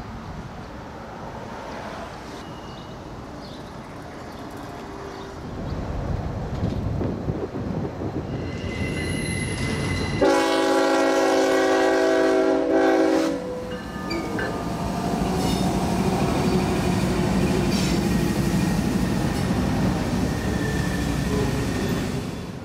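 Diesel freight train at a grade crossing: a rumble builds as it approaches, then the locomotive's horn sounds one long blast of about three seconds, about ten seconds in. After that comes the steady rumble and clatter of freight cars rolling over the crossing.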